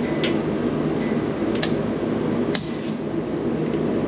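A machine running with a steady drone and hum, with a few sharp metallic clicks over it, the loudest about two and a half seconds in.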